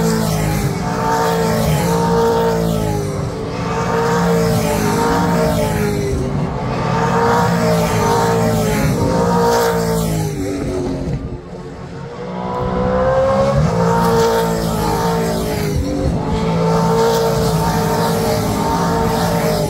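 V8 Supercars racing past one after another, their V8 engines loud, the pitch rising and falling as each car comes through. There is a short lull about eleven seconds in before the next cars arrive.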